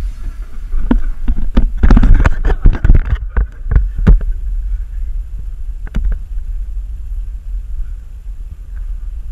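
Handling noise on a GoPro: a steady low rumble with a rapid run of knocks and rubbing against the camera for the first three seconds, then fewer, scattered knocks.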